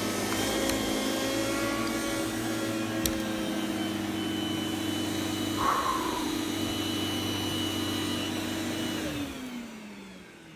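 Hoover S3765 WindTunnel bagless vacuum's motor running with a steady whine, its clogged filter just cleaned. About nine seconds in it is switched off and the whine falls in pitch as the motor winds down.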